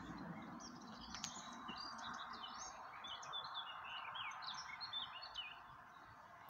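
Small birds chirping and twittering: a busy run of short, quick, high notes that thin out near the end, over steady faint background noise.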